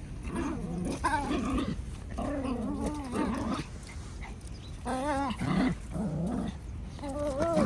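A dog vocalizing in a run of about six wavering, whiny grumbles, each half a second to a second and a half long, with the pitch wobbling up and down.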